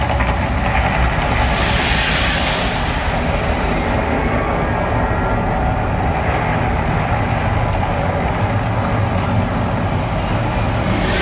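Mirage volcano show erupting: a loud, steady low rumble with the rush of gas flame plumes shooting up, swelling to a brighter hiss about two seconds in.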